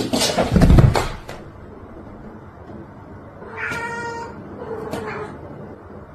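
A cat meows: one steady meow about four seconds in, followed by a fainter, shorter one about a second later. Before that, in the first second or so, there is a burst of rustling and knocking.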